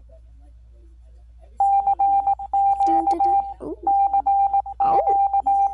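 Emergency alert tone: rapid beeps at one steady high pitch, starting about one and a half seconds in and running in two quick runs with a short break between them.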